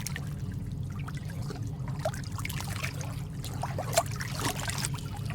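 Steady trickling, bubbling water with a low continuous rumble underneath and scattered small blips.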